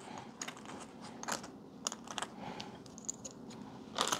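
Light, irregular clicks and taps of plastic DIP chips being picked up and handled on a mat, with a brief crinkle of a plastic bag about four seconds in.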